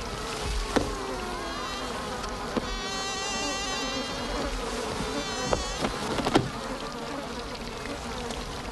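Cartoon fly buzzing with a wavering, wobbling pitch. A few sharp clicks are heard about a second in and again around five and a half and six and a half seconds.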